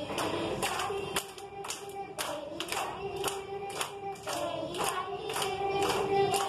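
A group of children singing a song together and clapping along in time, about two claps a second.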